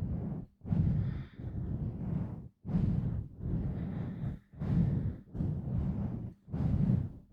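Hands pumping and rubbing directly on a microphone: a muffled, rumbling rush of handling noise in about six bursts, each cut off by a short gap.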